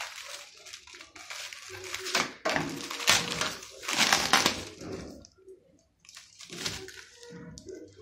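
Clear plastic wrap crinkling and rustling in irregular bursts as hands grip and rub ceiling fan blades wrapped in it, loudest about three and four seconds in.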